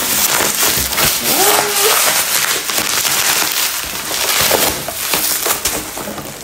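Black plastic mailer bag crinkling and rustling as it is torn open by hand.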